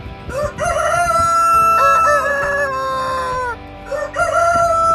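A rooster crowing twice: a long crow, then a second one starting near the end, over background music.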